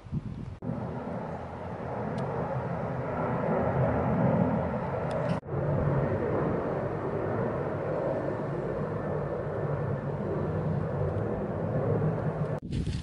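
A steady engine drone with a low hum of several pitches, cutting out for an instant twice.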